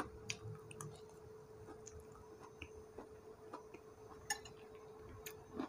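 A few faint, scattered clinks of a spoon against a rice plate during a quiet meal, with a faint steady hum underneath.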